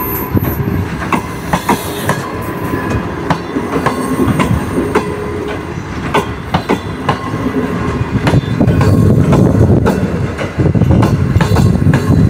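Green Line Express passenger coaches running past close by, a steady rumble with a clatter of wheel clicks over the rail joints. The rumble grows louder about eight seconds in.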